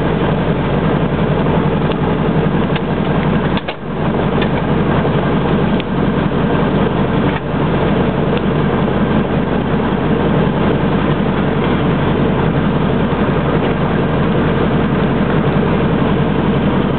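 DHC-2 Beaver floatplane's engine running steadily at low power while taxiing on the water, heard loud from inside the cabin, with a brief dip a little under four seconds in.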